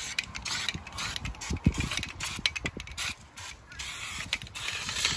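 Aerosol spray paint can hissing in about five short bursts as black paint is sprayed onto the truck bed's metal side, with a few low knocks from handling in between.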